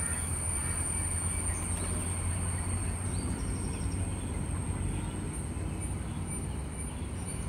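Riverside outdoor ambience: a steady low rumble with a constant thin high-pitched whine above it, and a faint short chirp about three seconds in.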